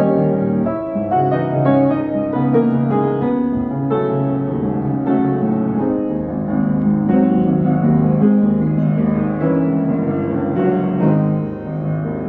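A solo piano piece, a melody played over held chords at a moderate, even pace.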